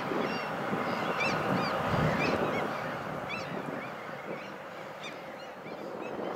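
A flock of birds calling, with many short rising calls overlapping, over a steady rushing background.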